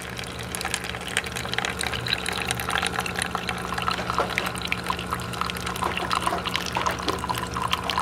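Keurig K-Classic coffee maker brewing: a thin stream of hot coffee trickling and splashing into a paper cup, over a steady low hum.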